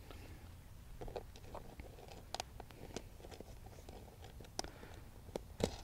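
Scattered light clicks and taps of small hardware being fitted by hand: metal bolts, washers and nuts going onto the plastic bracket of an inflatable raft's motor mount kit.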